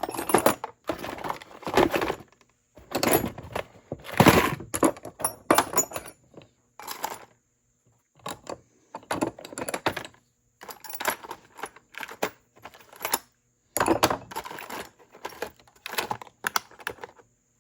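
Small hard parts and hand tools clattering and knocking as they are handled and set into a small toolbox, an irregular string of clicks and thunks with short pauses between them.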